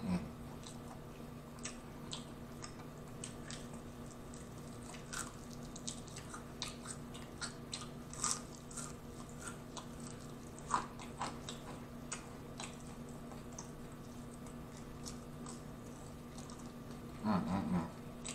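Close-miked mouth sounds of eating fried chicken wings: biting and chewing, with scattered small wet clicks and crunches, over a faint steady hum. A short hummed voice sound comes near the end.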